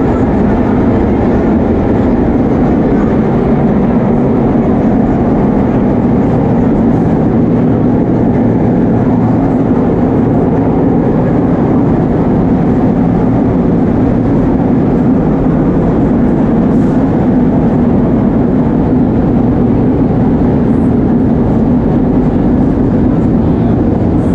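Vintage 1930s New York subway train running, heard from inside the car: a loud, steady rumble of wheels on the rails and running gear, with a steady low hum.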